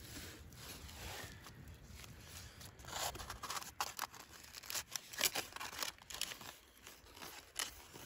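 Aluminium foil packet being sliced and torn open with a knife: irregular crinkling and tearing of the foil, quieter at first and loudest from about three seconds in.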